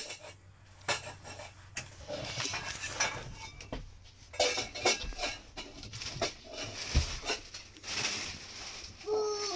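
Knocks, clicks and light rattles of a campervan's bench-seat cushions and under-seat storage lid being lifted and handled, with a heavier thump about seven seconds in.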